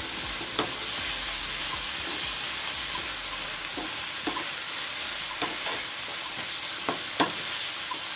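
Masala with makhana, cashews and peas sizzling in a non-stick pan while it is stirred with a wooden spatula, a steady frying hiss. The spatula knocks lightly against the pan a few times.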